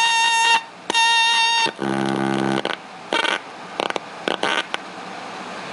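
Small Casio keyboard played through a circuit-bent filter box that crunches its sound: two bright held notes, then a low buzzing distorted note about two seconds in, followed by short broken bursts of crunchy noise.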